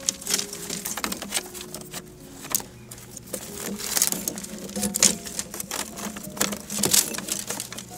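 Split bamboo strips clicking and clattering against each other as they are handled, a rapid irregular series of sharp taps and knocks.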